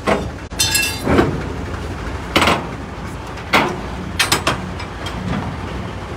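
Steel shipping-container doors being unlatched and swung open: several sharp metal clanks from the locking bars and door hardware, a second or so apart, over a steady background noise.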